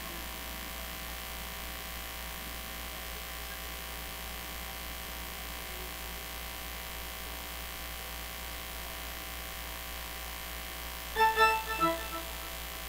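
Steady electrical mains hum and buzz from the stage sound system. About eleven seconds in, a few short electronic keyboard notes are played.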